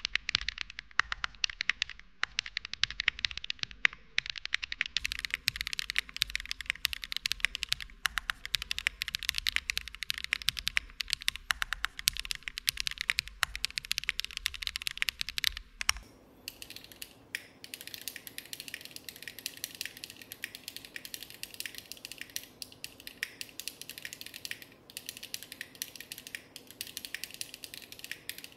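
Fast, continuous typing on a Meletrix Zoom75 Tiga custom mechanical keyboard fitted with KKB Izakaya Cherry-profile keycaps: a dense stream of key clacks. About halfway through, the character of the sound changes abruptly as the recording switches from one microphone to another.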